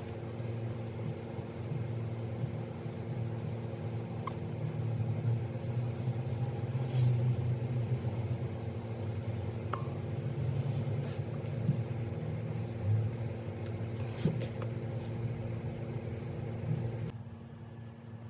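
Steady low electrical hum with a rumble underneath and a few faint clicks and taps; the hum cuts off abruptly near the end.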